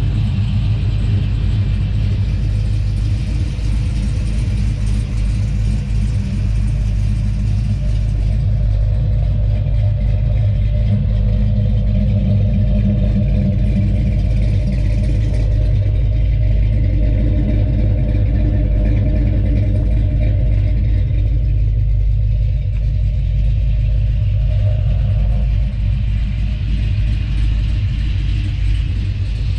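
Big-block Mopar V8 in a 1970 Dodge Coronet idling steadily, its exhaust running through 2-inch headers, 3-inch pipes and Flowmaster 40 series mufflers: a low, even rumble.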